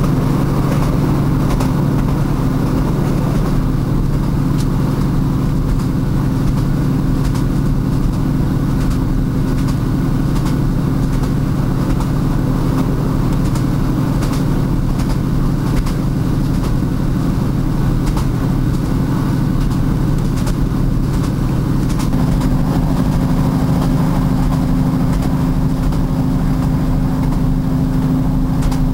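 Train running over jointed rail track: a steady low rumbling hum with faint knocks from the wheels passing the rail joints. The hum shifts slightly in pitch about 22 seconds in.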